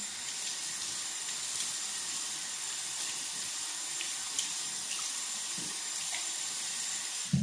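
Bathroom sink tap running steadily while water is splashed onto the face to rinse it, with a few faint splashes, then shut off suddenly near the end.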